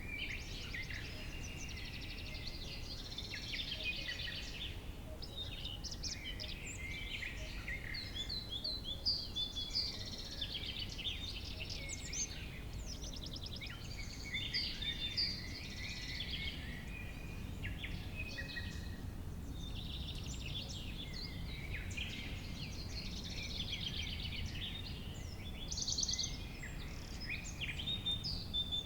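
Summer meadow ambience: many small birds chirping and trilling over one another without a break, over a steady low rumble.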